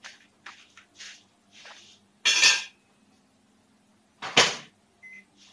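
Kitchen clatter as an oven and pans are readied: a string of light knocks and scrapes, with two loud bangs about two and four seconds in, the first leaving a brief ring.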